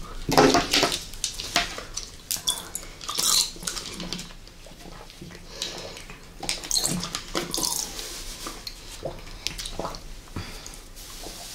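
Jelly being squeezed and sucked out of plastic syringes close to the microphone: irregular wet slurping and squelching, with sharp plastic handling sounds, loudest about half a second in as the syringes are taken from the rack.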